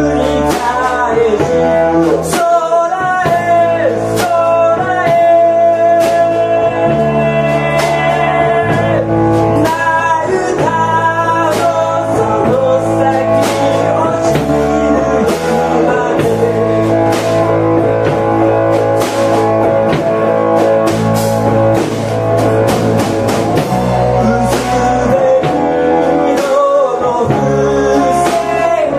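Live rock band playing: electric bass and drum kit, with a man singing lead vocals over them.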